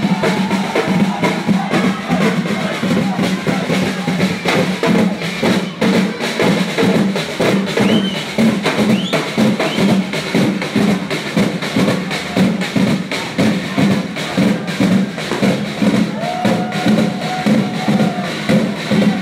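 Loud festival music driven by a steady, fast drumbeat, with voices shouting over it.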